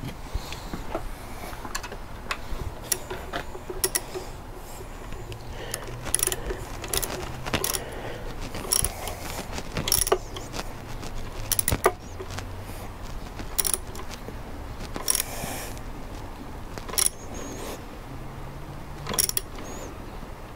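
Hand wrench tightening a bolt on a motorcycle's windshield mount bracket: irregular sharp metallic clicks and clinks, roughly one every one to two seconds.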